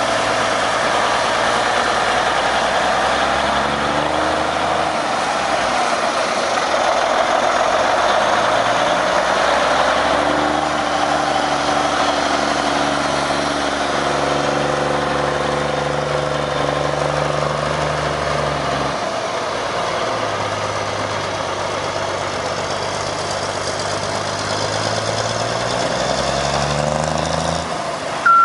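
1951 Autocar DC103 semi tractor's diesel engine driving off under power. The engine note climbs and falls back several times as it pulls through the gears, with a long climb in the last several seconds.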